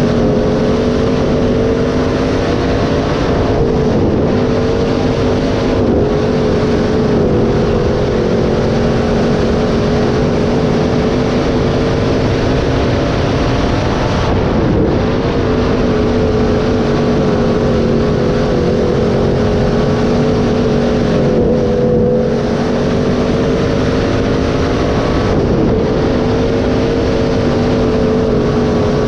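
Dirt-track B-mod race car's V8 engine running hard at high revs, heard from inside the car. Its pitch dips briefly several times as the throttle comes off for the corners, then climbs again.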